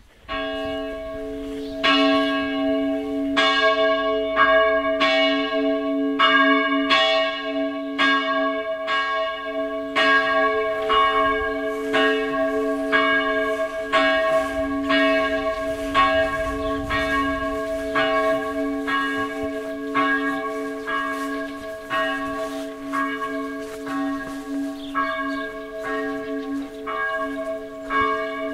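Church bells ringing in a steady, unbroken run of strokes, about one and a half a second, growing louder about two seconds in.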